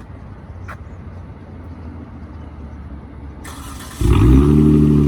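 Straight-piped Dodge Charger GT's 3.6-litre V6 starting up: after a low steady rumble, a short whirr comes in near the end and the engine fires loudly, its pitch sagging slightly as it settles into a loud exhaust note.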